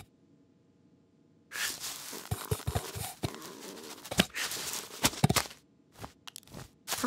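Cartoon sound effects of a cat tugging and scrabbling at a cloth sack: rustling with a run of light knocks and taps. It starts about a second and a half in and thins out to a few scattered knocks near the end.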